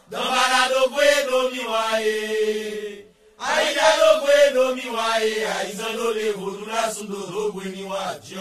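A voice chanting a Haitian Vodou invocation to the lwa in long held phrases, with a brief pause about three seconds in.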